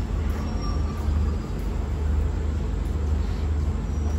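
Steady low diesel rumble of a passenger train at the platform, its engine running without a change in pace.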